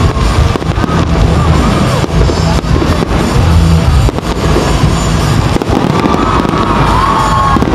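Fireworks going off in rapid, continuous bangs and low booms, with loud music playing along with them.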